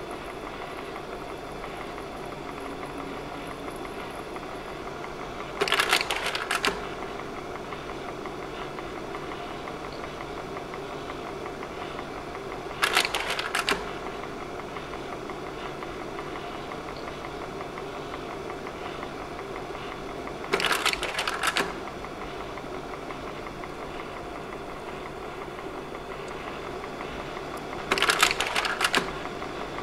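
Slide projector running, its fan and motor humming steadily, with the slide-change mechanism clacking through a cycle four times, about every seven and a half seconds, each change a brief burst of clicks.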